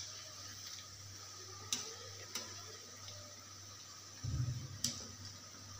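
Batter-coated cauliflower pieces deep-frying in hot oil in a kadai: a steady, quiet sizzle with a few sharp ticks scattered through it and a brief low rumble a little after four seconds in.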